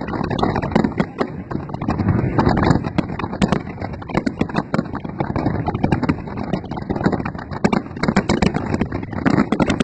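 Aerial fireworks going off in a big display, many shells bursting together: bangs and crackles follow one another several times a second without a break.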